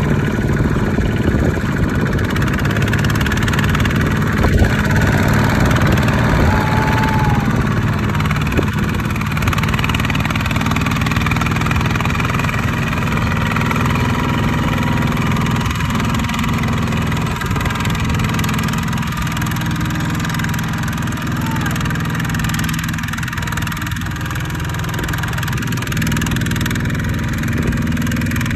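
ZT120 two-wheel walking tractor's single-cylinder diesel engine chugging steadily while it hauls a loaded trailer through mud, with a single sharp knock about four and a half seconds in.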